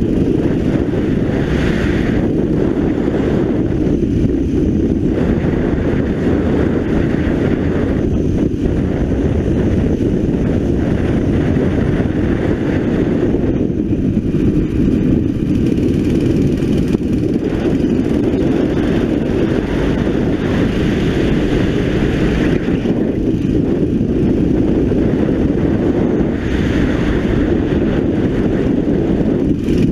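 Racing kart's 9 hp engine running at speed through a lap, its note rising and falling several times as the kart accelerates down the straights and slows for the corners.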